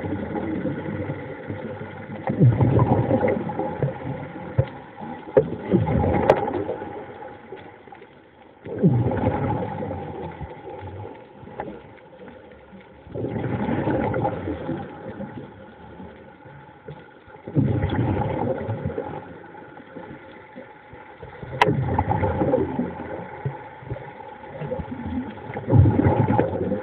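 Underwater bubbling and water noise that swells in bursts about every four seconds, seven times, over a faint steady hum, with two sharp clicks in between.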